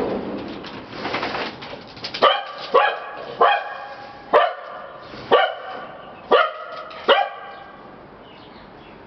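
A dog barking seven times, short single barks about one a second.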